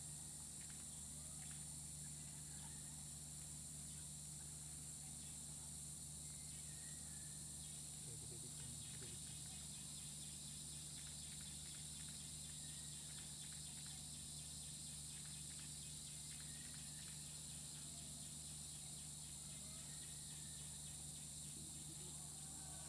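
Rainforest insects droning steadily on a high note, with scattered short bird chirps and, about seven seconds in, a quick run of high ticks.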